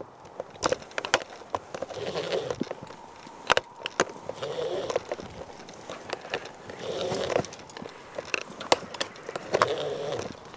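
Metal climbing hardware, jumar ascenders and carabiners, clicking and clinking in sharp irregular taps as a climber ascends a fixed rope. A strained breath comes about every two and a half seconds.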